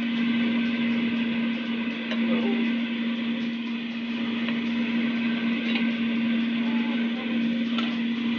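Philips air fryer's fan running with a steady hum and airy whoosh, with a few faint clicks and taps.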